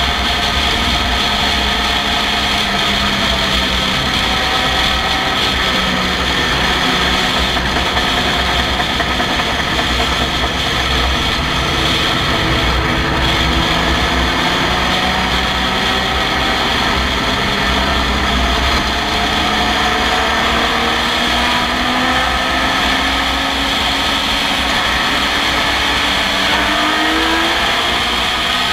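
Onboard sound of an open-cockpit racing car at speed: the engine running hard under load with rushing noise around it. The engine pitch climbs gradually as the car accelerates, rising more steeply near the end.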